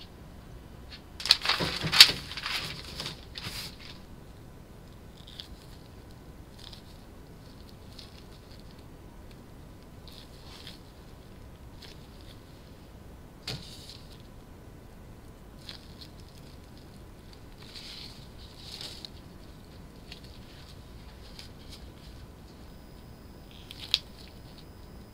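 Loud rattling clatter of things being handled for a couple of seconds near the start, then scattered soft handling noises and a few sharp clicks as boiled rice cakes are pushed onto wooden skewers.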